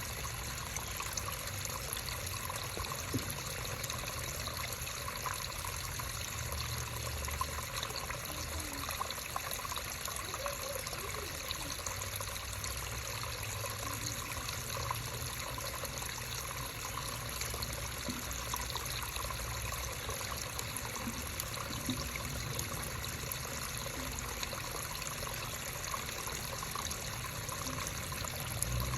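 Creek water flowing and trickling over stones: a steady rushing with many small splashes.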